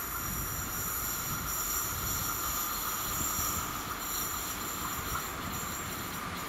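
Alstom Coradia Continental class 1440 electric multiple unit approaching on a curve: the rumble of its wheels on the track with a steady high whine, growing a little louder as it nears.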